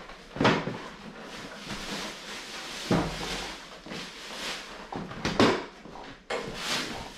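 Plastic wrapping crinkling and rustling as a treadmill is unpacked by hand, with a few louder knocks of the parts being handled.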